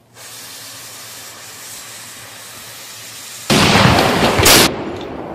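A homemade black-powder cannon's fuse hissing steadily for about three and a half seconds, then the cannon firing with a loud blast that lasts about a second and fades out.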